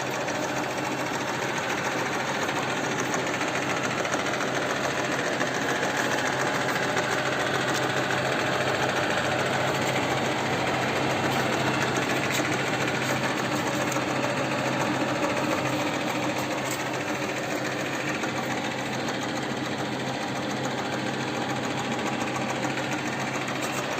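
1K62 screw-cutting lathe running steadily, its geared headstock and spindle giving a continuous mechanical whirr over a low hum.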